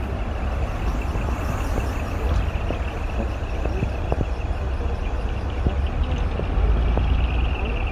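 Heavy trucks driving past with a steady, deep exhaust rumble and engine noise.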